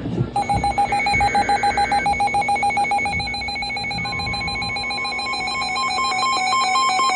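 Emergency Alert System SAME data bursts from NOAA Weather Radio, the warbling two-tone digital code that closes a warning, over a rapidly pulsing electronic alert beep. About four seconds in, the beeping gives way to electronic tones stepping between pitches.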